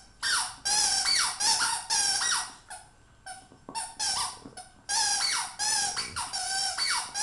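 Squeaky dog toy squeezed over and over by a dog's chewing, giving quick runs of short squeaks that slide in pitch, with a brief lull about halfway.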